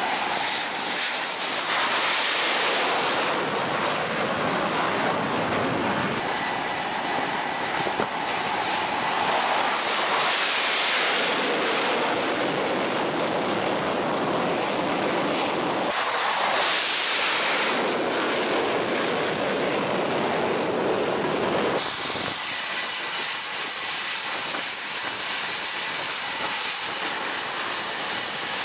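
F/A-18 Super Hornet jet engines: continuous loud jet noise that swells three times as aircraft pass, with a high-pitched turbine whine running over it.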